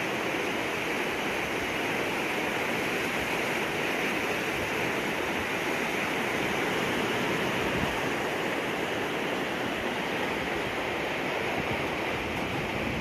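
Floodwater rushing steadily, a continuous even roar of flowing water.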